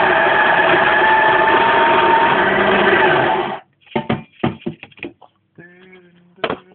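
Espresso grinder running steadily as it grinds coffee into a portafilter, then cutting off suddenly about halfway through. A series of sharp knocks and clatter follows as the portafilter is handled.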